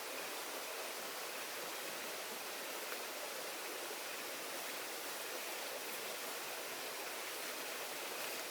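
Heavy rain falling steadily in forest, a continuous even hiss with an occasional faint tap.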